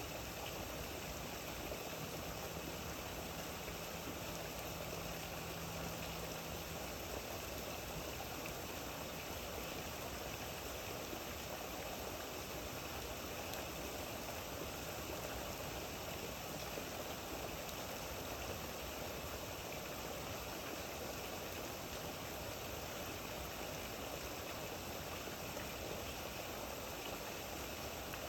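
Steady rain falling, an even, unbroken hiss with no separate drops or gaps standing out.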